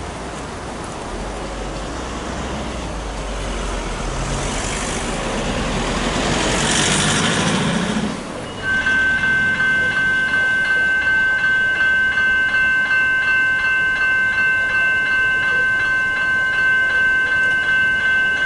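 Road traffic passing the crossing, rising to a peak about seven seconds in. About nine seconds in, the level crossing's General Signals electronic E-bell starts ringing, a loud, high, evenly repeated electronic ding that carries on to the end, warning that the boom gates are about to lower.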